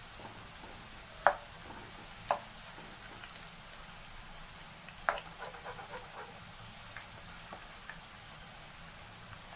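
Cornflour-coated potato sticks sizzling steadily in oil as they deep-fry on low flame, while a slotted spoon stirs them. Three sharp clinks of the spoon against the pan, about a second in, a second later and near the middle, the last followed by a few lighter ticks.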